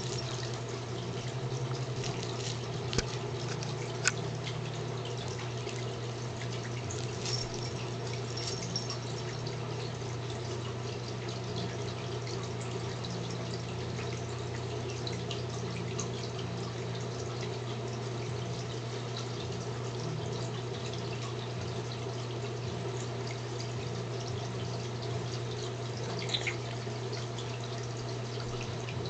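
Steady low hum with an even rushing hiss over it, like running water or an appliance, and a few small clicks and knocks, the sharpest about four seconds in.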